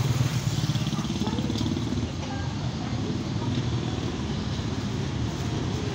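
A motorcycle engine running as it passes on the street. It is loudest at the start and eases off after about two seconds, over steady traffic noise.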